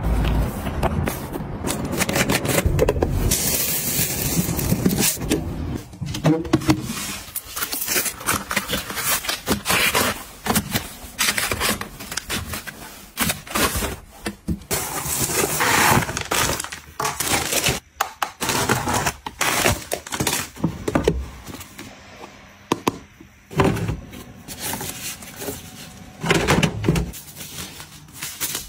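Close-up handling sounds in quick succession: foil and plastic packaging rustling and crinkling as packets are filed into a plastic basket, with many sharp clicks and knocks of items being set down.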